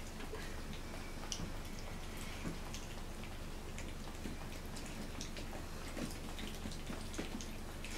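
Mittelspitz puppies lapping water from a shallow bowl: scattered small wet clicks and ticks at an irregular pace, over a low steady hum.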